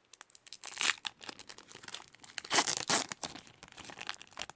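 Stuck-together baseball cards being pulled apart by hand, a run of crackling and tearing with louder rips about a second in and again around two and a half to three seconds in.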